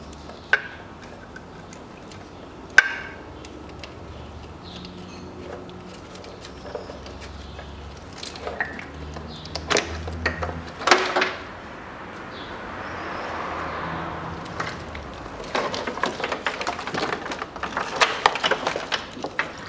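Scattered clicks and knocks of metal hand tools and car parts being handled during engine-removal work, with a few sharp clinks early on and a denser run of clattering in the last few seconds.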